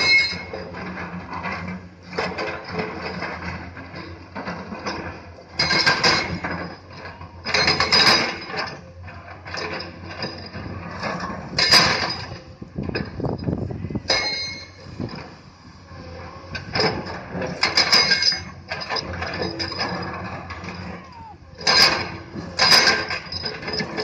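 Komatsu hydraulic excavators working stone: a steady diesel engine hum under repeated loud scraping and clattering bursts as the steel buckets dig into and drop rock, every two to four seconds.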